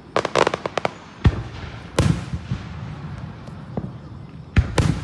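Aerial fireworks going off: a quick run of crackling pops in the first second, then single booms about a second and two seconds in, and two loud booms close together near the end, each trailing off.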